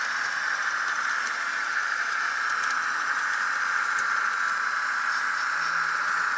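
Model Budd RDC railcar with a DCC sound decoder running on a layout: a steady whirring hiss of the running model, with a few faint clicks.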